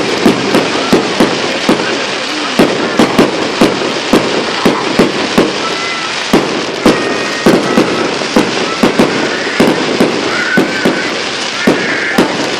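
Fireworks going off in quick, irregular loud bangs, about two or three a second, over a continuous crackle.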